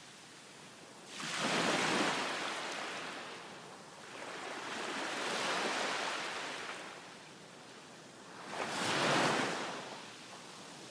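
Ocean waves breaking on a beach: three surges of surf about three to four seconds apart, each rising to a wash and receding.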